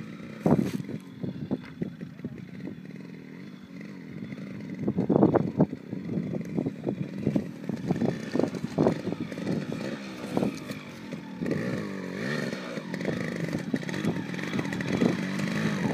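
Yamaha RX-Z's two-stroke single-cylinder engine running as the motorcycle is ridden over rough ground, revving up and down. It has a louder burst about five seconds in.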